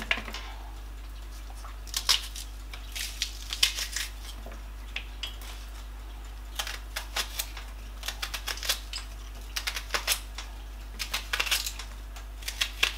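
Knife slicing an onion into rings on a plastic chopping board: irregular runs of quick, sharp taps as the blade cuts through and strikes the board.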